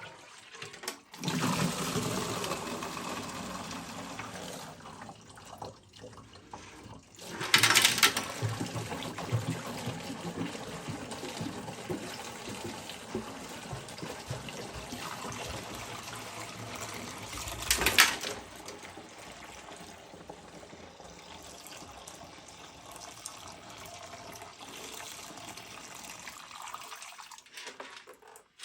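Distilled vinegar pouring and gurgling out of a 1973 Yamaha CT3 motorcycle fuel tank as it is emptied after a rust-removal soak, a steady run of liquid with two brief louder surges, about eight and eighteen seconds in.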